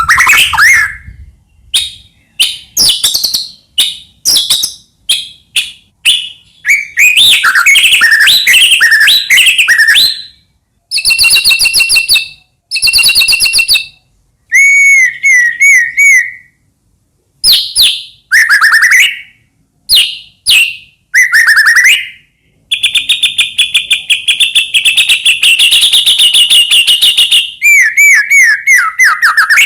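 White-rumped shama singing a loud, varied song: sharp notes and whistled phrases separated by short pauses, including downslurred whistles and a long rapid trill in the second half.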